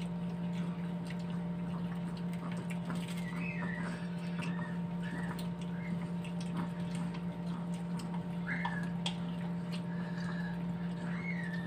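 Wet chewing, lip smacks and small clicks of cooked shrimp being peeled by hand and eaten, over a steady low electrical hum.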